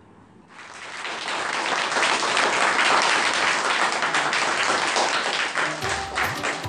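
A roomful of children clapping and applauding. It starts about half a second in, builds within a second or so and holds steady and loud. Music begins under it near the end.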